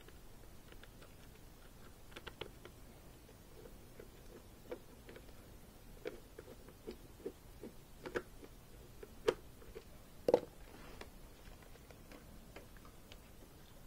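Small irregular clicks and ticks of a screwdriver working the facemask clip screws on a football helmet, with hard plastic and metal handling taps. Two sharper knocks stand out about nine and ten seconds in.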